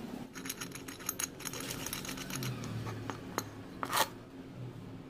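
Small metal parts clinking and tapping, with one sharper knock and a brief ring about four seconds in, over a faint steady hum.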